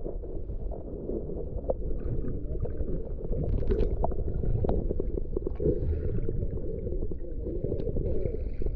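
Muffled underwater sound picked up by a camera held below the surface: a steady low rumble of moving water with scattered clicks and crackles.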